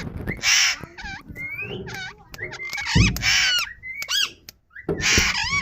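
Indian ringneck parrot (rose-ringed parakeet) calling: three harsh screeches, with shorter whistled chirps sliding up and down in pitch between them.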